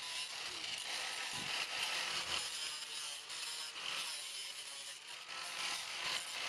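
Corded angle grinder cutting through a thin metal bracket, a steady high grinding hiss that eases briefly about five seconds in.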